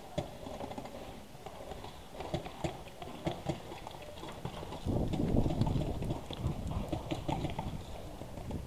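Footsteps on hard dry dirt with irregular knocks and rattles of carried gear. From about five seconds in, a louder rubbing and rustling close to the microphone takes over.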